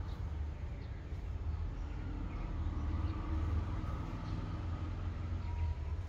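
Steady low rumble of background noise with a faint hum above it, and no distinct event.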